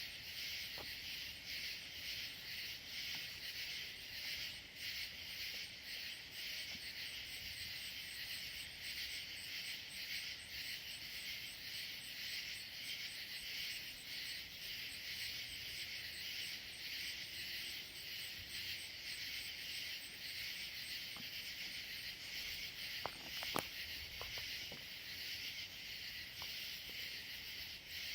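Insect chorus of crickets: a steady, dense trilling, with a faster pulsing high-pitched tone above it. A few sharp clicks come near the end.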